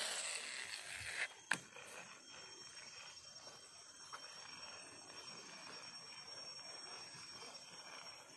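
Rustling handling noise for about the first second, with a sharp tap a moment later, then faint steady riverside ambience with a thin high whine running through it.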